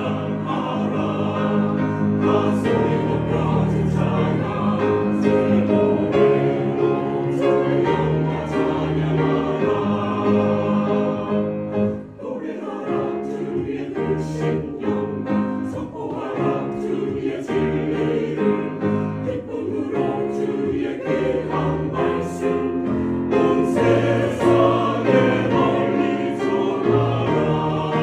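Church choir of mixed men's and women's voices singing a sacred song together, with a brief break between phrases about twelve seconds in.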